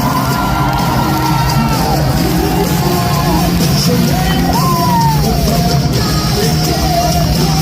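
Loud music with a steady low beat, with a crowd yelling and whooping over it.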